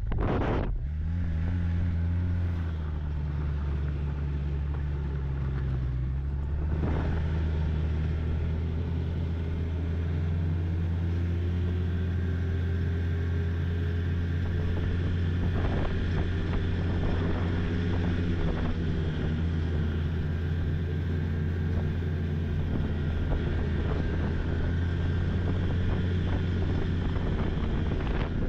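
Snowmobile engine running steadily under way, its pitch climbing slowly as it gathers speed. A brief whoosh comes right at the start, and a few knocks fall near the middle.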